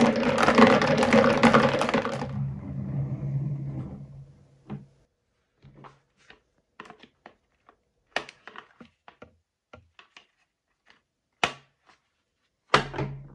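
Glass marbles rolling and clattering down a wooden track rail into a plastic toy dump truck's bed for the first two seconds, fading into a low rumble. Then scattered clicks and knocks of a plastic toy dump truck being handled, with a louder knock near the end.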